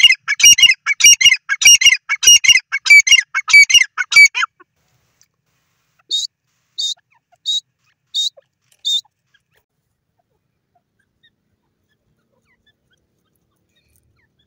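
Grey francolins calling. First comes a fast series of about eight loud, harsh, repeated phrases over roughly four seconds. After a short pause come five short, high single notes, evenly spaced.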